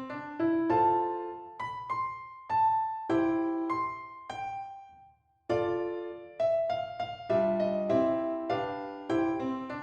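Background piano music: a slow piece of struck notes and chords that ring and fade, with a brief pause about five seconds in.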